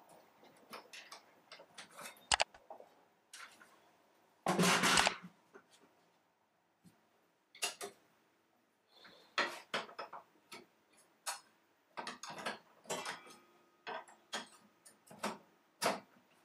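Scattered light clicks and knocks of wooden pieces and parts being handled on a table saw that is not running, with one louder scrape lasting about half a second at around four and a half seconds.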